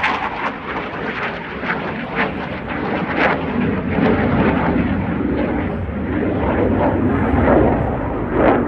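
Dassault Rafale fighter jet's twin M88 turbofan engines, loud jet noise with an irregular crackle as the aircraft flies its display overhead, growing louder near the end.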